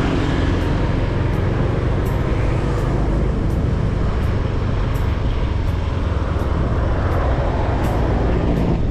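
Steady rush of wind and road noise from a moving vehicle, with a heavy low rumble.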